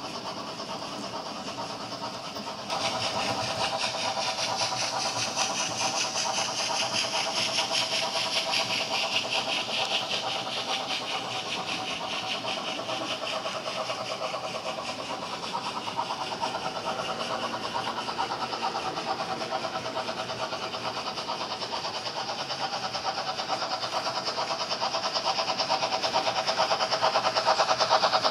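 Model train rolling on sectional track: a steady, rapid clatter of small metal wheels over the rails and joints as a long rake of tank wagons passes. It gets suddenly louder about three seconds in and louder again near the end.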